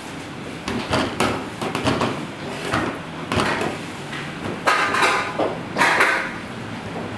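Metal kitchenware clattering: a series of sharp knocks and clanks at uneven intervals, a few of them ringing briefly.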